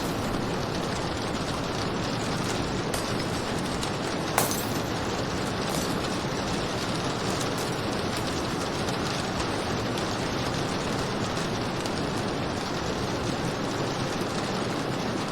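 Steady rain falling: an even hiss with scattered sharp drop ticks and one louder click about four seconds in.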